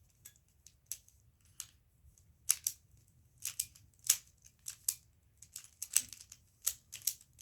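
Triangular plastic twisty puzzle being scrambled by hand: irregular, sharp plastic clicks and snaps as its faces and corners are turned, about two or three a second, with the loudest turns about two and a half, four and six seconds in.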